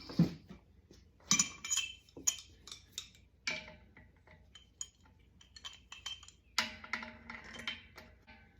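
Metal clinks and clatter of a wrench and threaded air-line fittings being handled and tightened, in scattered knocks, several with a short metallic ring.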